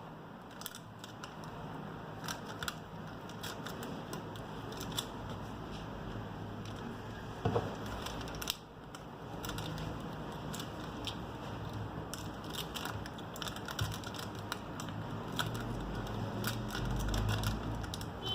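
Scattered light clicks and taps of small repair tools and plastic phone parts being handled during a smartphone disassembly, over a steady low hiss, with one louder knock about seven and a half seconds in.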